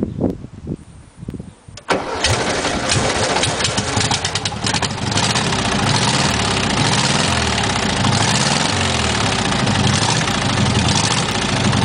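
The air-cooled flat-four engine of a VW Type 2 Bay window camper starting after standing unused for a long time. It catches about two seconds in, fires unevenly for a few seconds, then settles into a steady idle.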